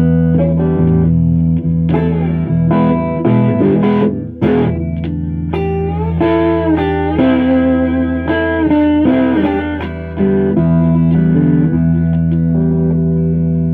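Les Paul-style electric guitar playing an instrumental lead line with string bends and slides, over sustained low notes.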